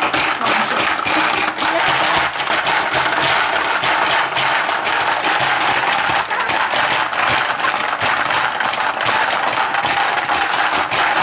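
Hungry Hungry Hippos game in play: the plastic hippos clack as their levers are pressed over and over, with marbles rattling across the plastic board, a rapid, continuous clatter.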